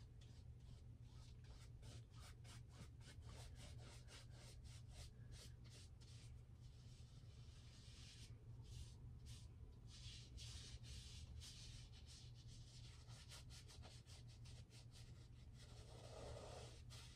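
Faint scratchy strokes of a paintbrush on stretched canvas, many short strokes in quick succession as paint is brushed on, over a low steady hum.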